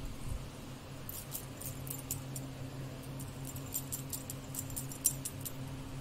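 Quick, light clicking and rustling of a small pet conure moving and nibbling about on the bedding, over a steady low hum.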